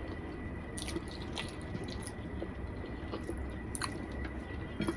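Chewing and wet mouth sounds of a man eating khichuri and chicken lotpoti, with a few short sharp smacks, one of the sharpest near the end.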